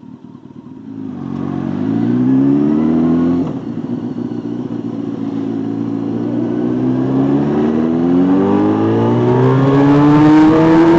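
Motorcycle engine pulling away and accelerating. Its pitch climbs, drops suddenly about three and a half seconds in as it shifts up a gear, then rises slowly and steadily until the end.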